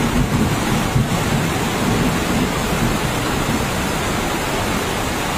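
Steady, loud rush of heavy rain and fast-flowing floodwater.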